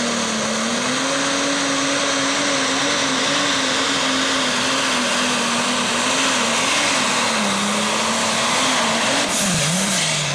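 Turbocharged diesel engine of a 10,000 lb Pro Stock pulling tractor running flat out under load while dragging the weight sled, with a steady high turbo whistle over the engine note. About a second before the end, the engine note dips and the whistle drops away.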